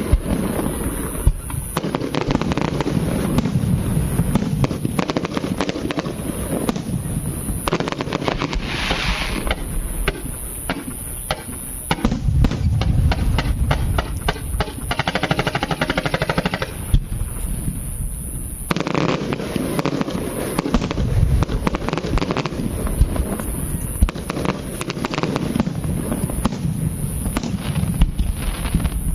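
Fireworks and firecrackers going off without a break: dense crackling and pops with heavier low blasts, and stretches of rapid, evenly spaced crackling.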